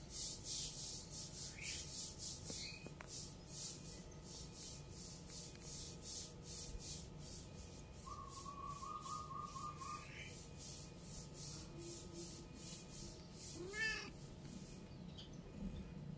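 Giant African land snail rasping at leaves with its radula as it feeds: a faint, rhythmic dry scraping of about three strokes a second that stops near the end.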